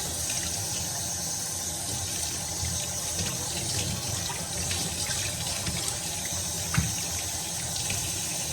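Steady rushing noise like running water from a tap, with scattered faint clicks and one sharper click about seven seconds in.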